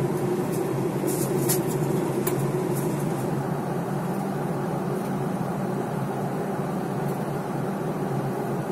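Steady drone of a Boeing 737's engines and airflow heard inside the passenger cabin in cruise, with a few faint ticks about a second in.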